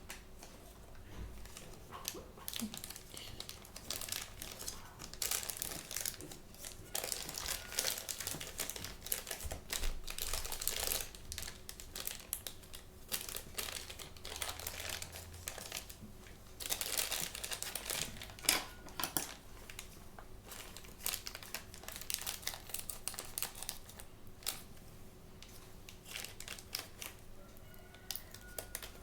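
Blind-bag toy packaging crinkling and rustling as it is handled and torn open, in irregular bursts with louder stretches in the middle.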